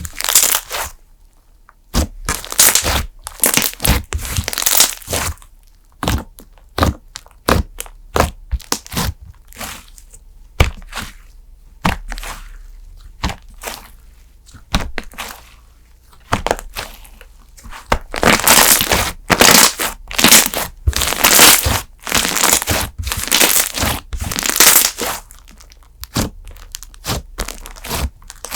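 Cream-textured slime being squeezed, poked and stretched by hand, giving irregular runs of sharp clicks and crackles as trapped air pops. The clicking is densest and loudest in the last third.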